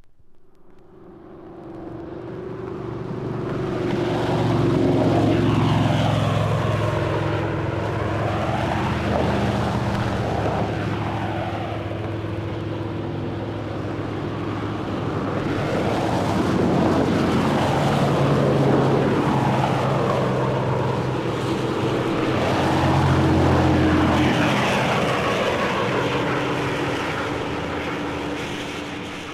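Propeller airplane flying past, its engine drone fading up from quiet, swelling loudest twice as the pitch shifts, and easing off near the end.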